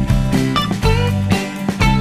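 Background music with plucked guitar notes over a repeating bass line.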